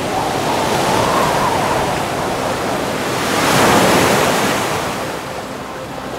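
Ocean surf breaking and washing over a rocky shore, swelling twice, about a second in and more strongly near four seconds, then easing off.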